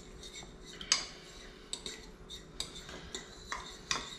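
Metal fork clinking and scraping against a small bowl while blending cornstarch into water: a run of irregular sharp clicks, the loudest about a second in.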